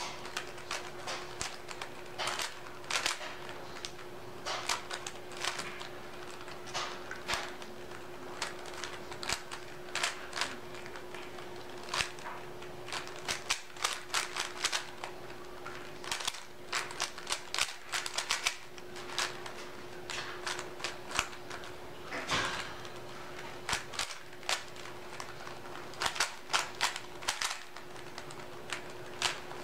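Rubik's Cube being turned fast by hand: quick, irregular runs of plastic clicking and clacking as the layers are twisted during a solve, over a steady hum.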